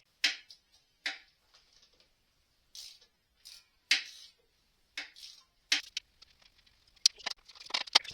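Small ratchet clicking in short, irregular strokes as a 10 mm bolt on the engine's thermostat housing is worked loose, with a quicker run of clicks near the end.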